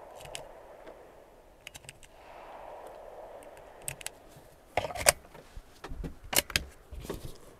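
Sharp metallic clicks and clacks of a Tikka T1X .22LR bolt-action rifle being handled and its bolt worked, coming in a cluster from about five seconds in.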